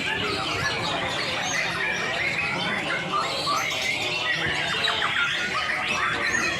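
Several white-rumped shamas (murai batu) singing over one another: a dense, unbroken mix of quick whistles, chattering phrases and harsh squawking calls.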